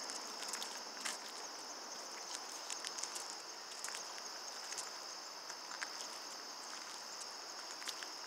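Steady, high-pitched chorus of insects, with scattered light clicks and ticks over it.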